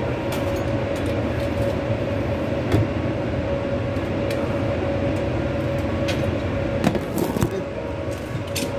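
Steady mechanical hum with a constant mid-pitched whine running under it, broken by scattered light clicks and knocks of metal, with a cluster of sharper knocks about seven seconds in.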